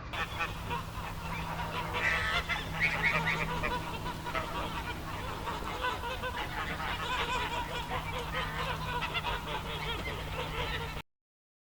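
A flock of geese honking and chattering, many short calls overlapping, over a steady low hum; the sound cuts off abruptly near the end.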